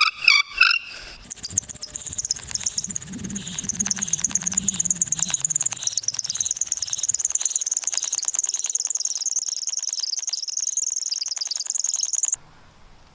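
Bow drill in use: the wooden spindle squeals as it spins in the fireboard's notch, pulsing with each push and pull of the bow, grinding wood into dust toward a coal. It stops suddenly near the end.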